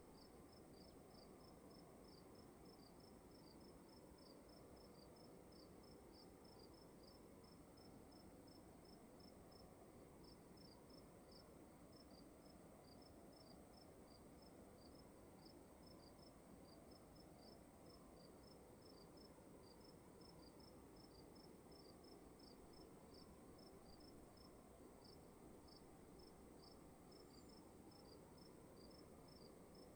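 Crickets chirping faintly in an even, unbroken rhythm, over a steady high-pitched tone and a low, constant room hiss.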